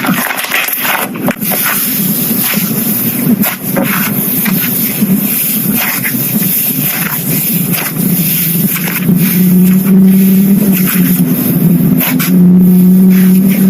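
Slime being squished and worked by hand: a dense run of sticky clicks and crackles, with a steady low hum entering about nine seconds in and growing louder near the end.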